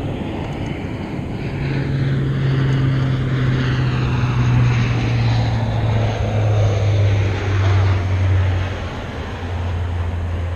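Low-flying propeller airplane passing overhead, its engine drone loud and sliding steadily lower in pitch as it goes by, loudest in the middle and easing near the end.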